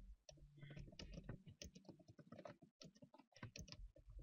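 Faint typing on a computer keyboard: a quick, irregular run of key clicks.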